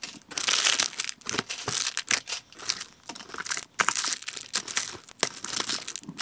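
Plastic snack wrappers and packaging crinkling and rustling as they are handled and lifted out of a box, in irregular bursts.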